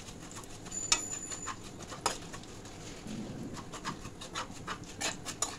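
A flat spatula stirring whole spices frying in hot mustard oil in an aluminium kadai: scattered light scrapes and taps of the spatula on the metal pan over a faint sizzle.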